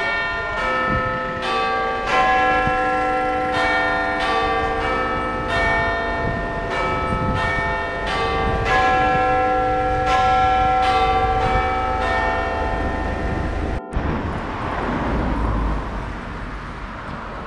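Bells chiming a string of overlapping, ringing notes, struck about once or twice a second. They cut off abruptly about fourteen seconds in, leaving a steady rushing street and wind noise.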